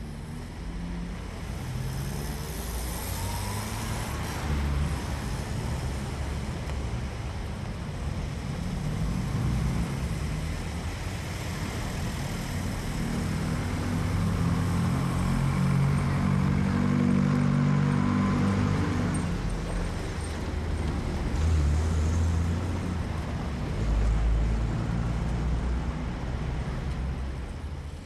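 Road traffic: a continuous wash of passing cars and engine rumble, getting louder toward the middle.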